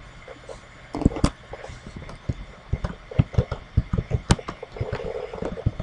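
Typing on a computer keyboard: an irregular run of key clicks, a few of them louder than the rest.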